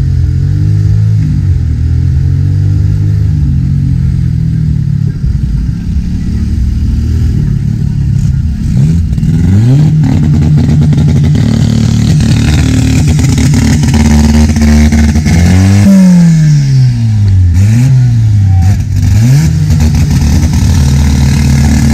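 Mini buggy's engine, heard close from onboard, running and then revved up and down repeatedly in quick rising and falling sweeps through the second half.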